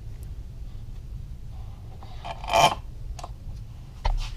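Metal engine parts and tools being handled: a short scraping rub about two and a half seconds in, a small click, then a dull knock near the end.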